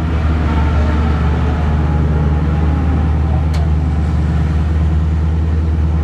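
Race-prepared Chevrolet Camaro's V8 heard from inside the cockpit, running at a steady low engine speed as the car rolls slowly down pit lane.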